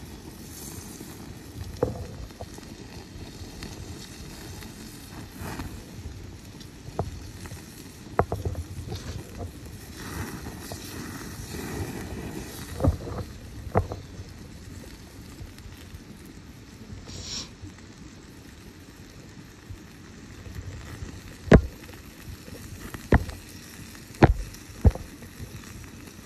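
Wood-and-charcoal campfire crackling, with scattered sharp pops that come closer together near the end, over a low steady rumble.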